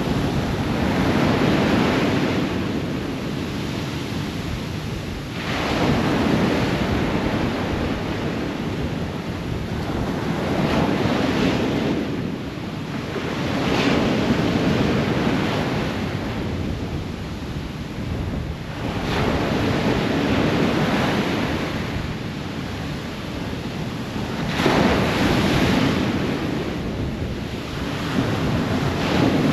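Ocean waves breaking on a shore, each wave surging in and washing back, a new one arriving every four to six seconds.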